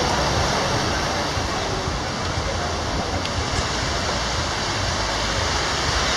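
Steady rushing and splashing of water from the water slides and pools.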